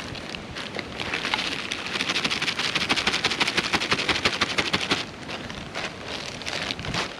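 Lumps of charcoal poured from a plastic bag onto cut logs: a dense pattering rattle of small pieces landing, from about a second in until about five seconds, with the bag crinkling. After that the plastic bag rustles more sparsely as it is handled.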